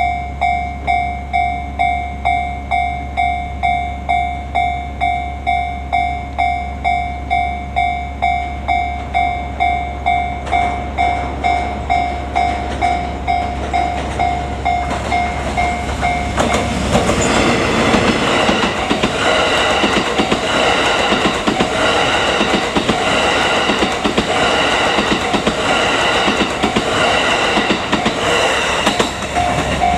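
Japanese level-crossing warning bell ringing steadily, about two strikes a second. About 17 seconds in, a train hauled by a DD200 diesel locomotive rolls over the crossing. Its loud wheel and rail rumble, with a rhythmic clatter, covers the bell until near the end, when the bell is heard again.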